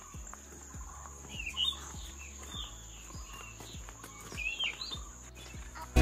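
Birds chirping in short calls, several times, over a steady high-pitched insect drone, with faint music low underneath.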